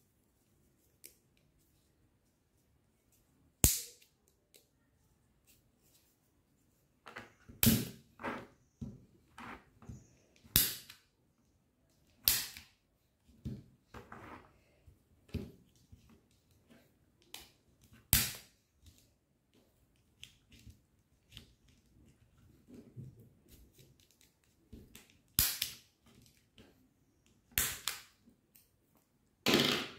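Scissors snipping through a thin plastic cup, giving sharp snaps and cracks at irregular moments, about a dozen loud ones among smaller clicks and rustles of the plastic being handled.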